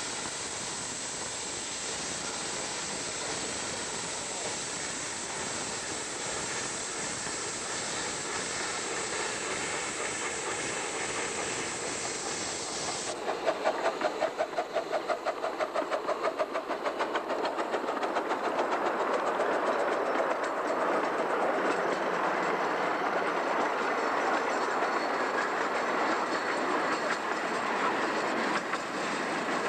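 Miniature steam locomotive passing with its passenger car: a steady hiss at first, then about fourteen seconds in a quick run of exhaust chuffs, about four a second, followed by the cars rolling by on the track.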